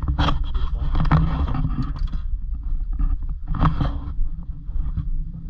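Steady low rumble of wind buffeting an action camera's microphone aboard a small fishing boat, with the boat running underneath. There are louder rushes of noise about a quarter second in and again near four seconds.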